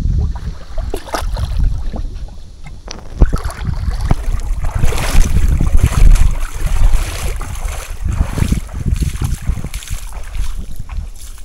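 Water splashing around a jet ski as it is moved into place at the shore, with wind buffeting the microphone and a few knocks against the hull.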